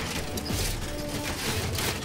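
Cartoon background music, with mechanical clattering sound effects mixed in.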